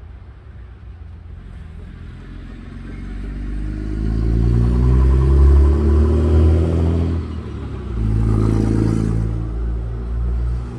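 A heavy truck's engine running loud as it goes by. It builds over a few seconds, dips briefly, then picks up again.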